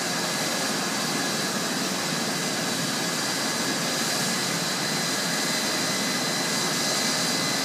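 Hospital helicopter's turbine engine and rotor running on the ground while it warms up before takeoff: a steady, very noisy rush with a thin, high, steady whine.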